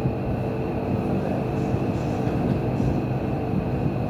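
Steady, loud machine rumble with a constant low hum, running without a break.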